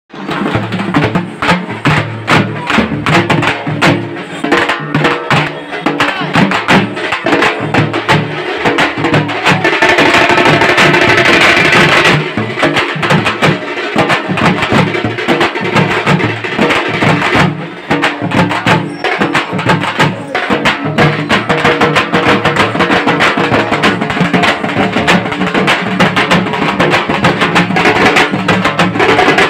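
Loud music driven by fast, steady drum beats, with a brighter, denser passage around ten to twelve seconds in.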